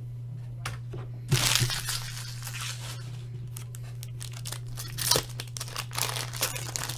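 Trading card pack wrappers being torn open and crinkled by hand: a burst of tearing about a second in, then scattered rustles and clicks, over a steady low hum.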